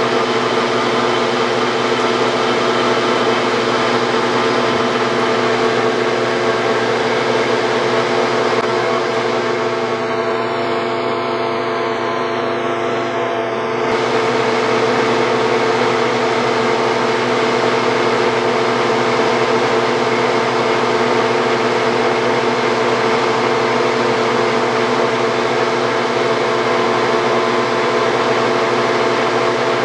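1966 LeBlond tool-and-die lathe running steadily while taking a slow finishing cut on a turned pin: a steady machine hum with several held tones. It dips slightly in level for a few seconds about 9 s in, then comes back up.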